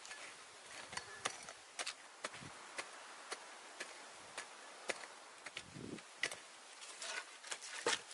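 A small wooden-handled digging tool chopping and scraping into dry, loose soil in irregular sharp strikes, roughly two a second, over a faint steady hiss.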